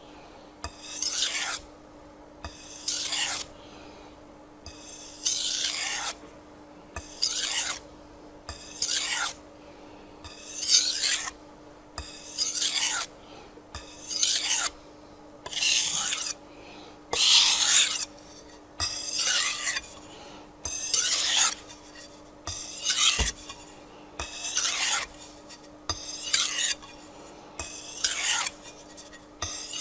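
Japanese chef's knife blade stroked over an 800-grit whetstone, one rasping stroke about every one and a half to two seconds while the edge is refined.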